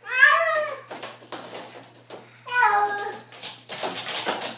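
Feral cat meowing twice: a call that rises then falls at the start, and a second, falling call about two and a half seconds in. Short knocks and scuffles come between and after the meows.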